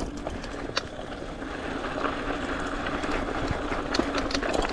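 Electric mountain bike's kit motor running under full load up a steep climb, a steady hum, with scattered clicks and rattles from the bike on the trail. The motor is straining: at maximum power it lacks the strength for the hill on 29-inch wheels.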